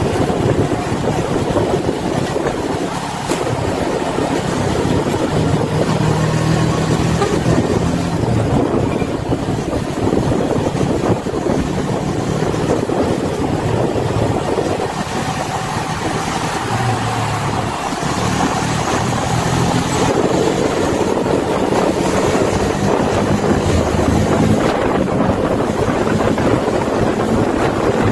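Steady engine rumble and road noise of a moving vehicle on the road, with tyre and wind noise; the low engine hum shifts in pitch a few times.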